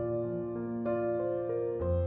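Background piano music, soft sustained notes with the melody changing every half second or so.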